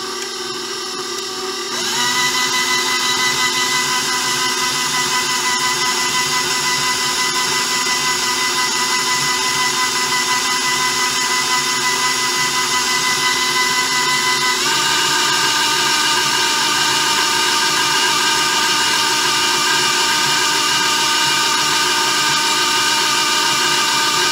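KitchenAid stand mixer's motor and gears running steadily with a whine, its dough hook working pie crust dough. The whine grows louder about 2 seconds in and steps up to a higher pitch about 15 seconds in.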